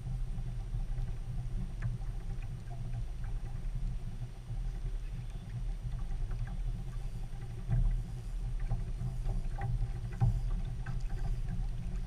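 Muffled low rumble of wind and water around a fishing kayak, dulled by a GoPro's waterproof housing, with scattered faint clicks from handling the gear.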